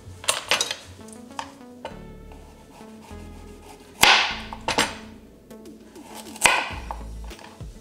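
A vegetable peeler being worked on a carrot: a handful of short, sharp scrapes and knocks at uneven intervals, the loudest about halfway through. Quiet background music plays underneath.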